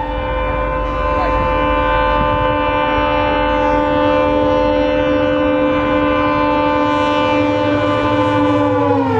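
WDP4 diesel locomotive's horn sounding one long, loud blast as the Shatabdi Express approaches at speed, with the rush of the train underneath. Near the end the horn's pitch drops as the locomotive passes.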